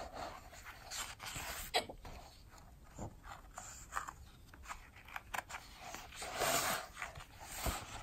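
Pages of a softcover art book being turned and handled: paper rustling and sliding, with a few sharp ticks of paper and a longer swish a little past six seconds in.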